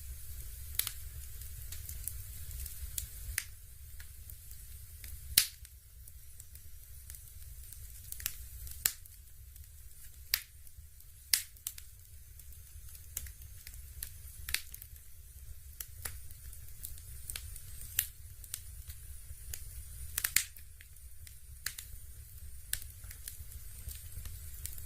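Fireplace crackling: sharp, irregular crackles and pops, roughly one a second, over a steady low hum.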